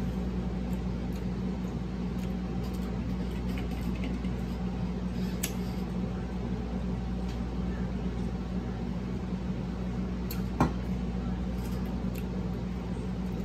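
Steady low background hum with two clicks, a light one about five seconds in and a sharper one about ten and a half seconds in.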